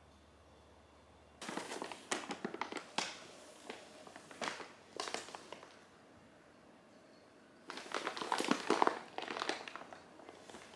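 Brown paper shopping bag rustling and crinkling as a cat wearing it moves about. There are two spells of crackly crinkling, the first starting about a second and a half in and the second near the end.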